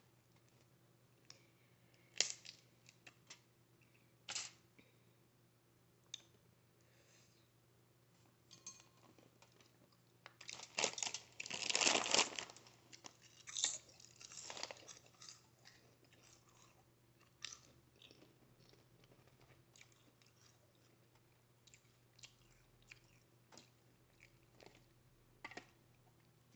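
Close-miked mouth sounds of eating seafood boil: chewing with sharp crunches and clicks. The crunching is densest and loudest about ten to fifteen seconds in.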